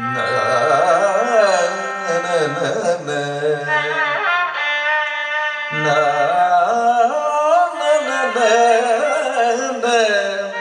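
Male Carnatic vocalist singing gliding, heavily ornamented melodic phrases, with violin accompaniment.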